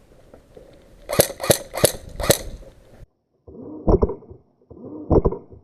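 Four sharp airsoft gun shots in quick succession, about a third of a second apart. The sound then cuts off abruptly, and a short clip with a single thump is played twice over.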